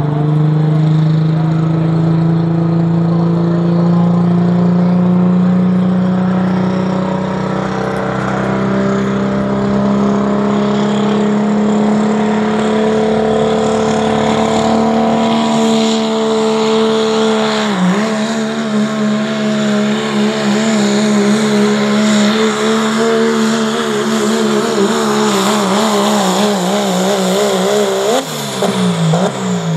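Diesel pulling truck (Chevrolet Silverado body, 3.0 Limited Pro Diesel class) under full throttle, dragging a weight-transfer sled. The engine pitch climbs steadily for about the first half, dips sharply once just past halfway, then wavers up and down, and breaks and falls off near the end as the truck comes past.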